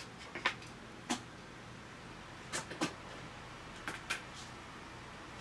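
A few short, light clicks and knocks, some in quick pairs, from handling a bottle of peanut oil before pouring it.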